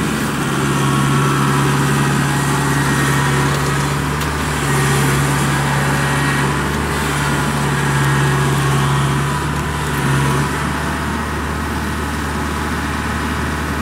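Engines of a rice combine harvester and a small tracked tow tractor running steadily under load as the tractor hauls the combine through deep mud. The engine note dips and picks up a few times.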